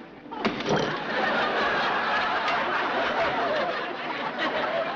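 Sitcom laugh track: a crowd laughing, swelling up about half a second in and carrying on loudly.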